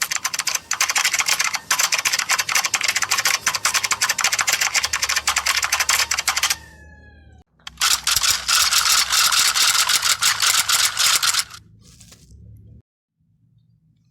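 Rapid, dense clatter of quick clicks in two long runs, the first about six and a half seconds and the second about four, with a short break between them. A faint falling tone sounds in the break.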